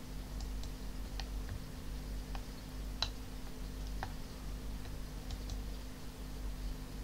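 Sparse, irregular clicks of a computer mouse and keyboard keys, about eight in a few seconds with the sharpest about three seconds in, over a steady low electrical hum.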